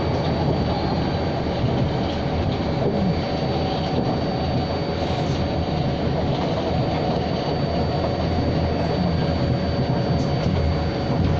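SMRT C651 metro train running at steady speed between stations, heard from inside the car: a constant rumble of wheels on rail with two thin steady tones riding over it.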